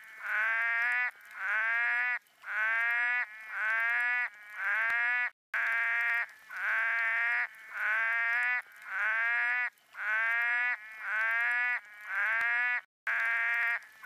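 A frog calling: a steady series of drawn-out pitched calls, about one a second, each rising slightly at its start. The run is broken twice by a short dead-silent gap.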